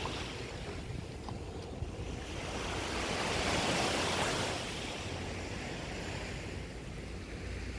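Small sea waves breaking and washing up a sandy beach, one wash swelling and fading about three to four seconds in, with a low rumble of wind on the microphone.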